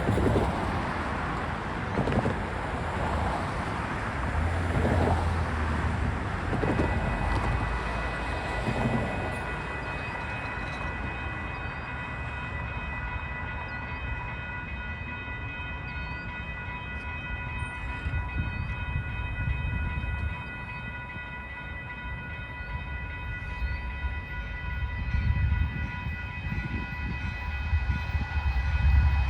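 Railroad crossing warning bell begins ringing about a quarter of the way in and keeps ringing steadily as the crossing signals activate for an approaching train. Before it, outdoor rumble and passing noise; near the end the low rumble of the approaching train builds.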